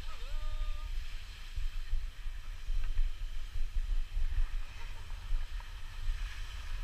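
Wind buffeting an action camera's microphone during a downhill ski run, a gusting low rumble, over the steady hiss of skis sliding on snow.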